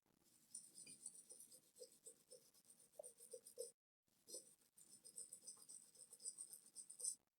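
Faint, rapid scratchy scrubbing on a small laptop circuit board, cleaning hot-chocolate liquid-damage residue off it, with a brief pause a little past halfway.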